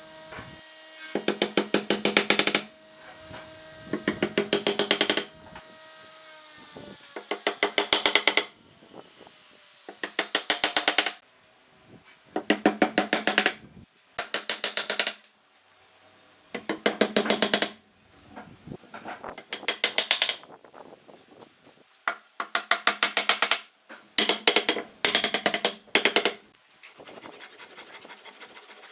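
A power tool hammering on wood in about eleven short bursts of rapid, evenly spaced strikes, with a faint motor hum in the gaps between them.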